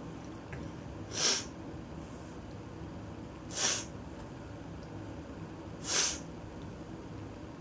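A person with a head cold sniffling: three short, sharp sniffs through a stuffy nose, a little over two seconds apart.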